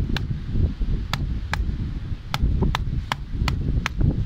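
Pliers striking a catshark's head again and again to kill it, on wooden decking. There are about eight sharp knocks at an uneven pace of two or three a second, over a low rumble.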